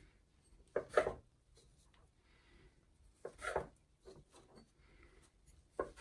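Dough being cut into pieces on a countertop with a small metal cutter: three short scrapes, each a few tenths of a second long, about two and a half seconds apart.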